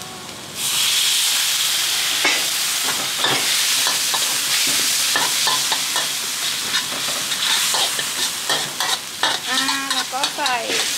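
Chili paste with seasoning sizzling as it is stir-fried in a hot wok. The sizzle starts up sharply about half a second in, and the metal spatula scrapes and clicks against the wok again and again.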